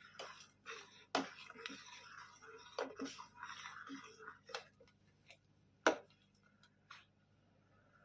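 Kitchen utensils knocking and clinking: a handful of sharp strikes, the loudest about six seconds in, with a faint murmur under the first half.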